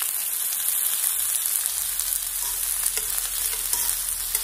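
Sliced vegetables (zucchini, carrot, lotus root, potato and oyster mushrooms) sizzling steadily on a hot griddle pan, with a few faint clicks of metal tongs against the pan in the second half as the pieces are turned.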